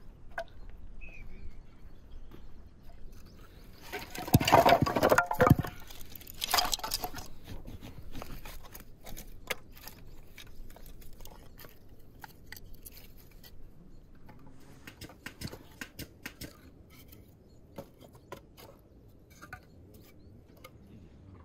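Split firewood knocking and clattering as the pieces are dropped and laid onto the ash of a stone fire pit. The loudest clatter comes about four to seven seconds in, followed by a scatter of lighter wooden knocks as the pieces are propped together.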